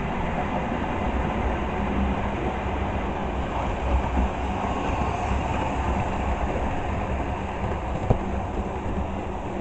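Model railway diesel locomotive and a long rake of goods vans running past on the track, a steady rumble, with one short click about eight seconds in.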